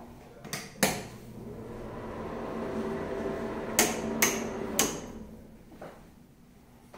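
Five sharp knocks or clicks, two about a second in and three in quick succession near the middle. Between them a steady hum with a few held tones swells up and then fades away.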